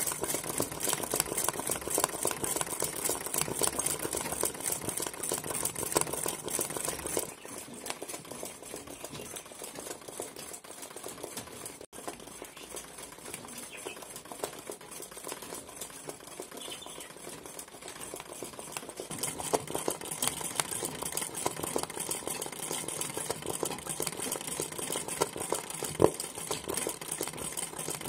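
Sewing machine stitching fast during freehand satin-stitch embroidery: a dense, even run of rapid needle strokes. It drops to a quieter run about seven seconds in and grows louder again in the last third.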